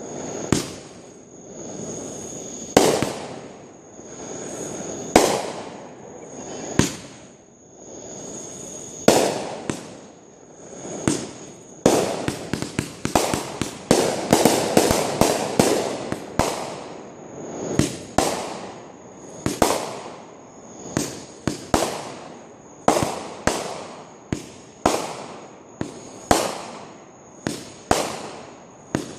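Fireworks going off: sharp bangs every second or two, many preceded by a swelling hiss. About twelve seconds in, a dense flurry of rapid bangs runs for several seconds.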